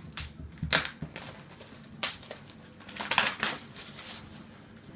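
Plastic wrapping crinkling and tearing as a 12-inch vinyl record sleeve is unwrapped, in irregular bursts, loudest just under a second in, at about two seconds and around three seconds.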